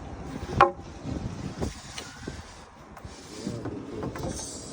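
A sharp knock with a short ring about half a second in, and a fainter knock about a second later, over steady traffic noise, as drywall and wood are strapped down on a truck.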